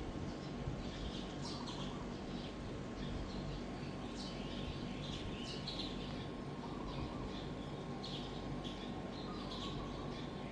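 SMC H56 56-inch industrial ceiling fan running steadily, a constant motor hum with a whoosh of moving air. Short high chirps come and go over it.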